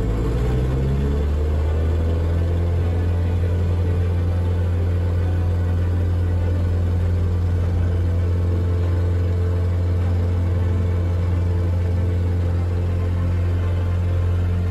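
Mooney M20 single-engine piston airplane on its takeoff roll at full power, heard from inside the cockpit: a loud, steady deep engine and propeller drone, with a brief rising tone in the first second or so.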